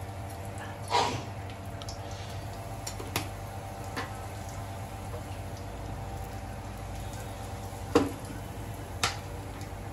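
Spices sizzling in hot cooking oil in a pan, over a steady low hum, with a few sharp knocks, the loudest about a second in and twice near the end.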